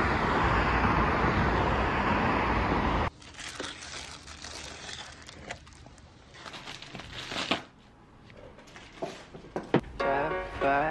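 A loud steady rushing noise for about three seconds that cuts off suddenly, then a plastic bag crinkling and rustling as it is handled, with a few sharp clicks. Background music comes in near the end.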